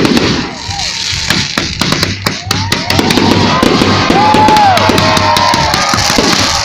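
Fireworks popping and crackling in rapid, dense succession over loud music. From about a third of the way in, arching sliding tones rise and fall through the din.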